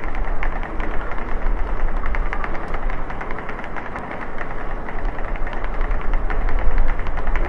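Wheels of a rolling suitcase being pulled along a hard floor: a steady low rumble with a quick, dense clatter.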